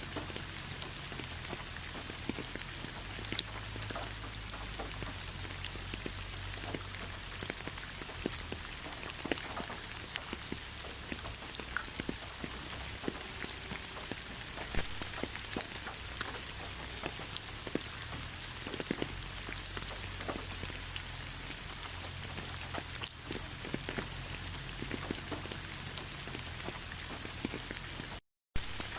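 Steady rain falling on a surface, a dense even hiss with many individual drops ticking through it and a low rumble underneath. The sound cuts out completely for a fraction of a second near the end.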